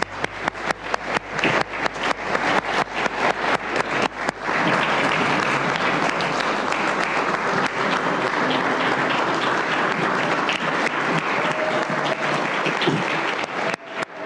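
Congregation applauding. Scattered separate claps build into dense, steady applause about four seconds in, then thin back to separate claps near the end.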